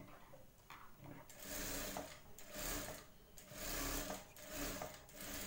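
Electric sewing machine stitching a seam along a blouse's neck band in about four short runs, each under a second, with brief pauses between them as the cloth is guided, starting about a second in.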